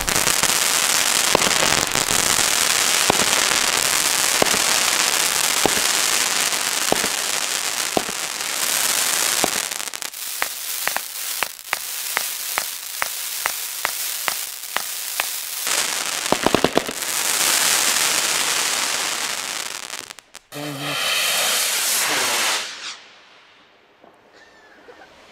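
Röder Ultra Edition "Time Rain" comet-shower battery firing: a steady hiss from the comet shots, broken by sharp cracks about once a second at first, then quicker, two or three a second. It dies away shortly before the end.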